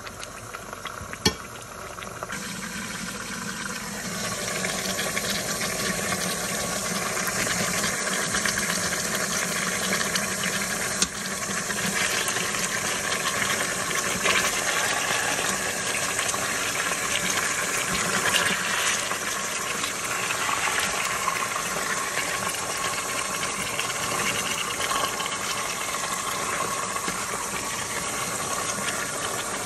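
Marinated goat meat searing in the hot inner pot of an electric multicooker, a steady sizzle with its juices bubbling that builds over the first few seconds. A sharp click about a second in.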